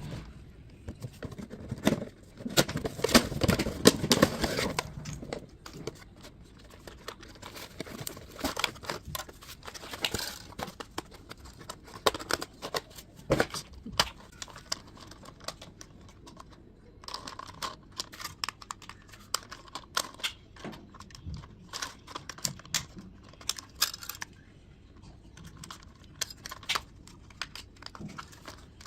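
Toy packaging being handled and opened: plastic and cardboard crinkling and tearing, with scattered sharp clicks and taps, loudest in a burst a few seconds in.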